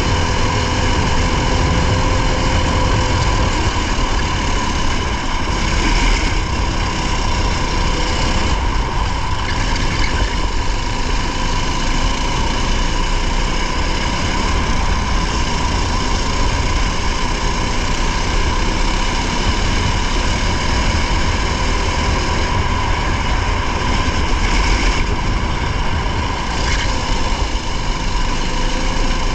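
Race car engine heard from onboard, running steadily with a constant high whine and small changes in pitch near the start and the end.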